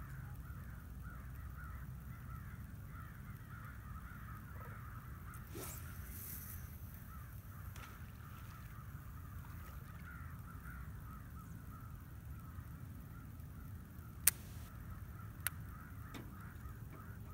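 A distant flock of birds calling continuously, many short calls overlapping into a steady chatter. Two sharp clicks stand out near the end.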